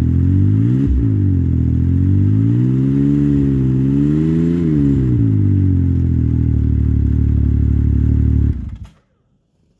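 Yamaha Sidewinder snowmobile's 998 cc turbocharged three-cylinder engine running through its exhaust: a quick blip of the throttle about a second in, then a gentle rev that is held briefly and drops back to idle. The engine stops abruptly near the end.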